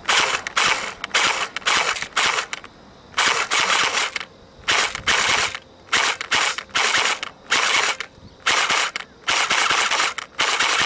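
Academy GSG-522 electric airsoft gun firing in a quick string of short bursts, its motor and gearbox cycling and shooting BBs, with brief pauses between bursts.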